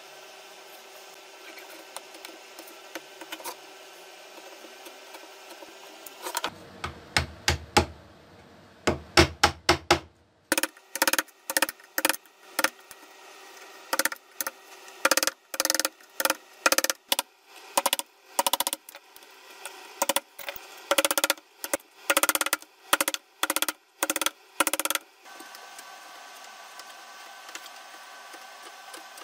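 Wooden mallet tapping a carving chisel into a pallet board to cut an outline: a long run of sharp knocks, two or three a second in short clusters. The tapping starts about six seconds in and stops a few seconds before the end, leaving a steady low hum.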